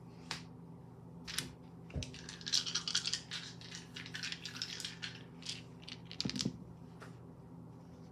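Small wooden divination dice clicking as they are picked up, then rattled together in the hands as a rapid clatter for a few seconds. Around six seconds in they are tossed onto a woven cloth with a few knocks.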